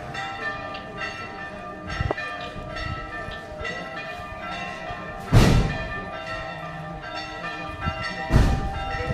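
Church bells ringing, several bells struck again and again with long overlapping tones. Two sudden loud bumps cut across the bells, about five and eight seconds in.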